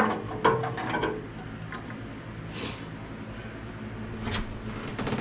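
Knocks, clicks and a brief scrape of hands and metal parts working on a table saw's belt drive, taking the drive belt off the pulleys: a quick run of knocks in the first second, a short scrape midway and more clicks near the end, over a steady low hum.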